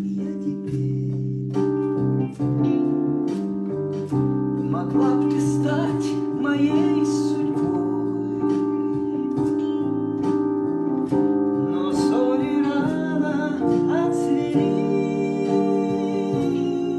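Music: a song with sustained keyboard chords and a wavering melody line over them.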